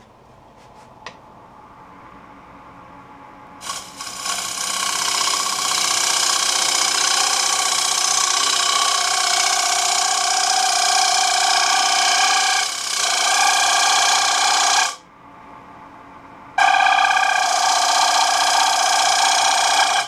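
Lathe tool cutting a thin alder plate spinning on a wood lathe, with a loud, steady squeal and chatter from the thin piece vibrating under the tool. The cut starts about four seconds in, stops for a moment about three-quarters of the way through, then starts again.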